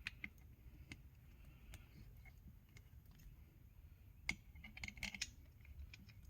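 Faint, scattered clicks and light clinks of small metal bolts being picked up and handled, with one sharper click about four seconds in and a short run of clicks about a second later.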